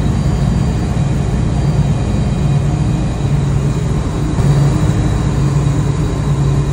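Steady low drone of running machinery, an even rumble that holds throughout with no distinct tool knocks or clicks standing out.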